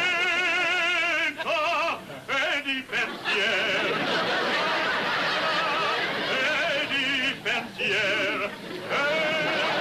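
Operatic tenor singing long held notes with a wide, strong vibrato, in phrases broken by two short pauses.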